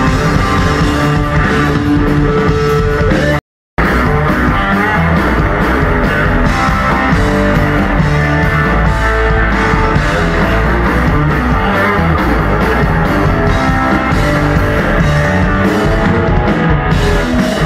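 Rock power trio playing loud live hard rock: electric guitar, electric bass and drum kit, recorded from the crowd. About three and a half seconds in, the sound cuts out completely for a moment, then the music carries on.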